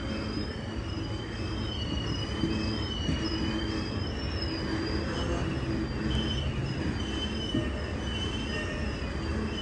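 BNSF freight train's brakes squealing as it creeps along at a crawl: a piercing screech in two high tones whose pitch wavers up and down continuously, over the low rumble of the rolling cars.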